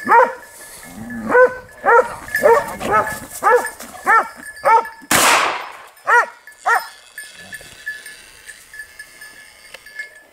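Hunting hound baying at a downed wild boar: a run of about ten sharp barks through the first seven seconds, then the barking stops. A single loud, harsh rushing noise cuts in about five seconds in.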